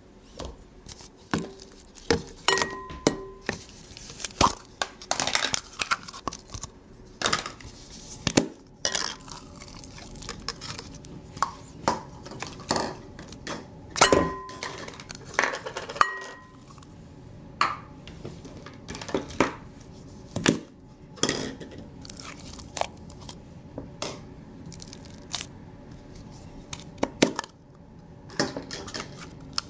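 Plastic slime tubs and lids clacking and clinking against a large glass bowl while slime is squeezed and peeled out of them: a string of irregular sharp knocks, a few leaving a short ring.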